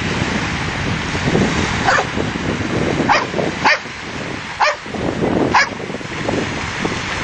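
A dog barking in short, sharp barks, about five of them spread over several seconds.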